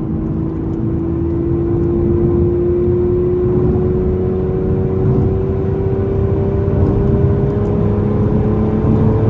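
2014 Aston Martin Vanquish's 5.9-litre V12 pulling under acceleration, heard from inside the cabin, its note rising slowly and evenly as the revs climb, over a low road rumble.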